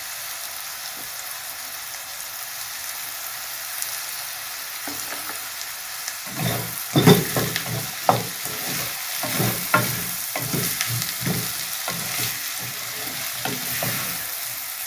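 Diced onions sizzling steadily in hot oil in a frying pan, softening in the first stage of a filling. About six seconds in, a spatula starts stirring them, with repeated scraping strokes against the pan.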